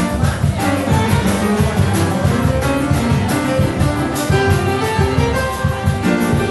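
Piano playing many quick notes over a plucked bass line.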